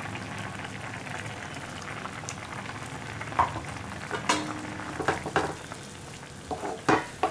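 Bitter gourd curry bubbling in tamarind water in a pan. From about three seconds in, a wooden spatula stirs in ground masala paste, knocking and scraping against the pan several times.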